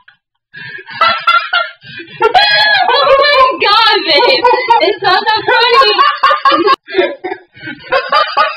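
High-pitched, warbling voices with no clear words, sing-song vocalising and laughter, loud and close. They start about half a second in, after a brief silence.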